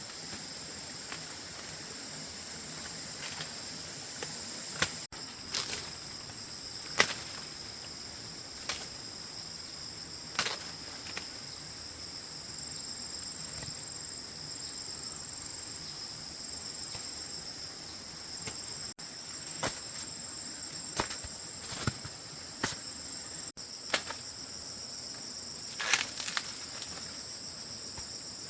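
Steady high-pitched chorus of insects holding two constant tones, with scattered sharp snaps and knocks every few seconds.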